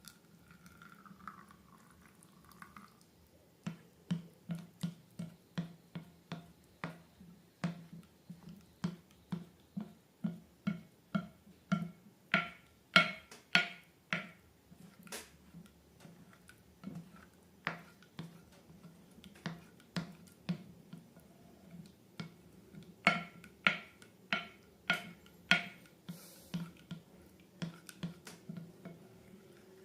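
Slime being squeezed and worked by hand, giving a long run of short sharp sticky clicks and pops, about two a second, louder in a couple of stretches.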